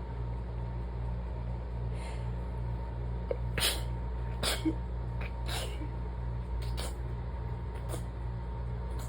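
Rapid stifled sneezes during an allergy fit, about five short sharp bursts in quick succession starting a few seconds in, over a steady low hum.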